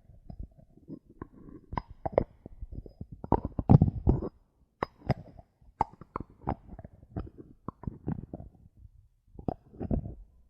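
Bottle caps tapped and handled close to the microphone: an irregular run of sharp clicks and taps mixed with soft low thuds, with a faint high ring after some of the taps.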